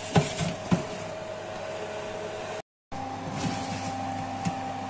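Electric oven running with a steady fan whir and hum, with a few sharp knocks in the first second. The sound cuts out briefly partway through and comes back with a slightly higher hum.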